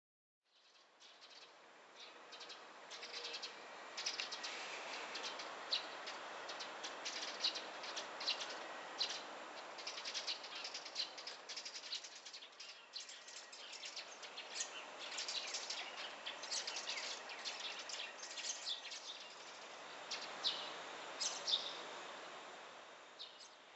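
Outdoor ambience of many short, high bird chirps over a steady background hiss.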